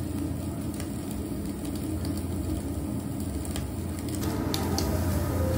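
Beef sizzling on a charcoal grill with occasional small crackles, over a steady low hum.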